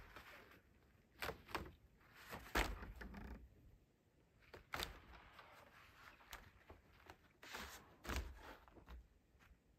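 Wooden shed doors being opened and handled: a string of knocks, thuds and scrapes, the loudest about two and a half seconds in, with more near the middle and toward the end.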